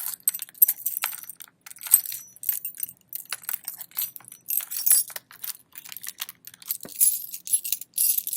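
Keys and coins jangling and clinking, with rustling, as things are jostled around a phone in a purse: a long run of short, irregular rattles.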